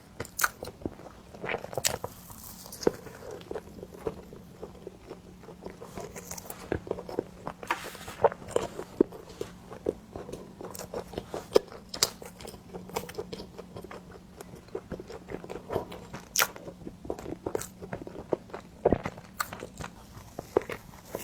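Close-miked eating of cream bread: irregular bites and chewing with sharp mouth clicks.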